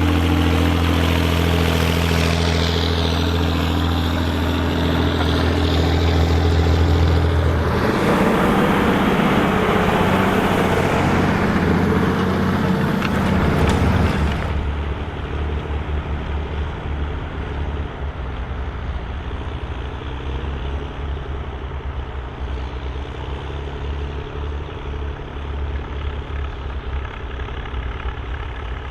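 Volvo BM tractor diesel engines working in the field while ploughing, across separate shots: a steady engine with a deep hum for the first several seconds, a harsher, noisier engine sound from about eight seconds in, then a sudden change to a quieter, lower engine sound from about fourteen seconds on.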